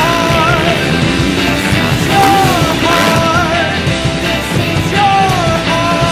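Rock music soundtrack, loud and steady, with a sliding lead melody phrase that repeats about every three seconds.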